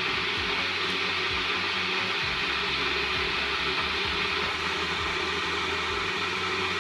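Kettle heating water toward the boil, giving a steady rushing noise with a low rumble underneath.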